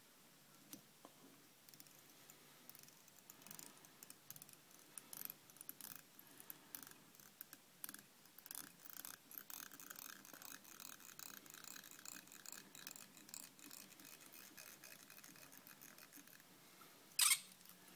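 Faint, irregular small clicks and scratching from fly-tying work: thread being wrapped from a bobbin around a hook held in a vise to bind on copper wire ribbing. A louder short scratch comes near the end.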